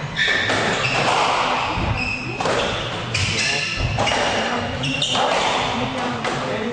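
Squash rally in a glass-backed court: the rubber ball is struck by rackets and smacks off the walls about once a second, echoing in the hall. Shoes squeak briefly on the wooden court floor between the hits.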